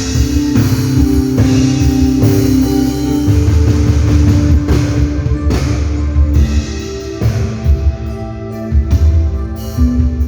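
Drum kit played in a rock song, with held bass and guitar notes under steady drum strikes.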